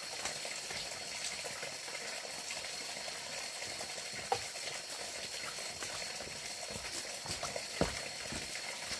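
Running water: a steady rushing, bubbling noise with a thin high tone held under it, and two light knocks, about four and eight seconds in.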